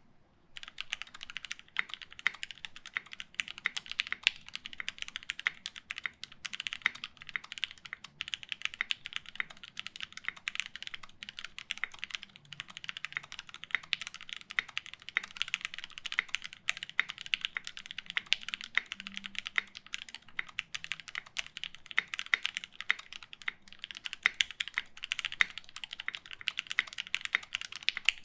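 Fast, continuous typing on a Taichi TKL mechanical keyboard with lubed linear Gateron Black KS-3 switches on an FR4 plate, GMK keycaps. Dense key strokes, starting about half a second in.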